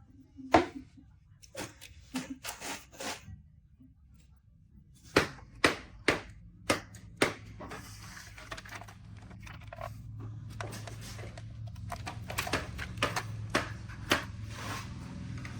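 Hard plastic toy parts clicking and snapping as a Transformers figure is handled: a few scattered clicks, then a run of five clicks about two a second, then many quicker clicks over a low steady hum that starts about halfway.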